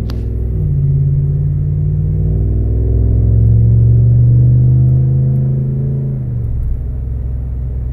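Exhaust of a 2019 Ram 1500 Classic running with its muffler deleted and replaced by a Y-pipe, heard from inside the cab as the truck accelerates. The exhaust note climbs in pitch, drops once about two and a half seconds in as the transmission upshifts, climbs again, then eases off about six seconds in as the throttle is lifted.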